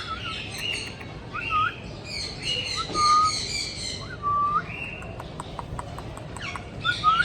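African grey parrot calling, with short whistles that slide up and down, raspier chirping calls and a quick run of clicks a little past five seconds in.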